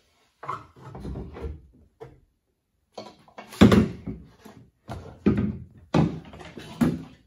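A sectioned carbon-fiber BMW i8 quarter-panel piece being handled and fitted against the car's body: a series of knocks, bumps and scrapes, the loudest about halfway through.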